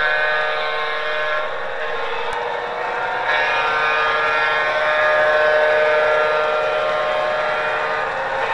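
Model freight train rolling past on its track: a steady whine from the running train over a rolling noise, getting a little louder about three seconds in.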